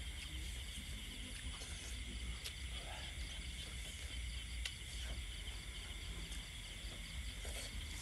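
Steady high-pitched chirring of night insects, over a low rumble, with a few faint clicks.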